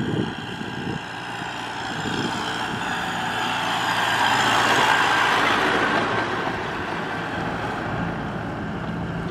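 A farm tractor towing a loaded trailer drives past with its engine running steadily. The sound grows louder as it approaches, is loudest about halfway through, then fades somewhat as it moves away.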